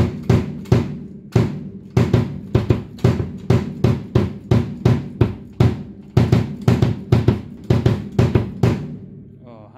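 Bass drum struck over and over by a foot pedal fitted with a new stainless steel beater, about three hits a second. Each hit is a sharp click with a low ringing boom. The hitting stops just before the end.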